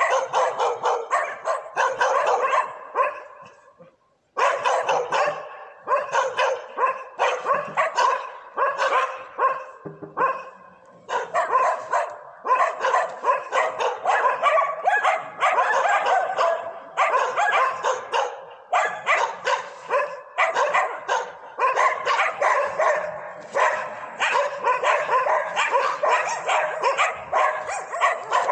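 A pack of stray dogs barking nonstop, several dogs' rapid barks overlapping. The barking stops briefly about four seconds in, then starts again.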